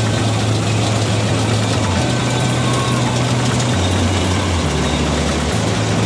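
Combine harvester running in the field: its engine and threshing machinery make a loud, steady noise, with a low drone that shifts in pitch a few times.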